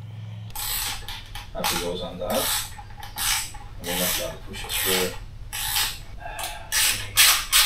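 Repeated rasping, scraping strokes of a hand tool working metal, about two a second and quickening near the end, a few of them with a short squeal.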